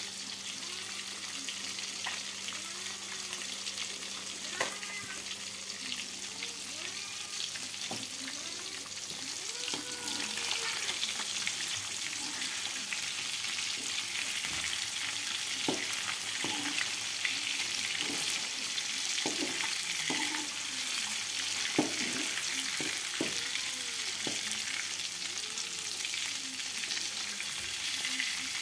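Fish frying in hot oil in an aluminium wok, a steady sizzle that grows louder about ten seconds in, with a metal spatula scraping and knocking against the wok as the fish is turned. Short rising-and-falling cat meows repeat through the first half.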